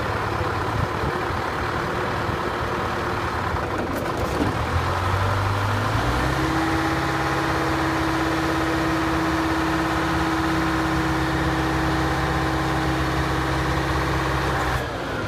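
Texoma 700 drill rig's engine running steadily. About five seconds in its pitch shifts, and from about six seconds it settles into an even run with a steady tone over it.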